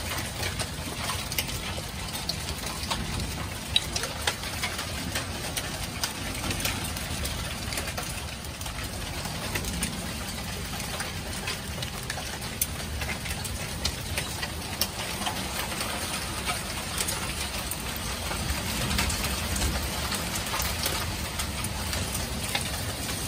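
Heavy rain mixed with hail falling on a wooden deck: a steady hiss of rain with scattered sharp clicks of hailstones striking.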